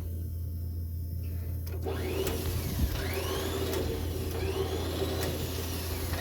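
Road sweeper machinery running: a steady low hum, joined about two seconds in by a whirring with a rising-and-falling whine that repeats about every second and a half.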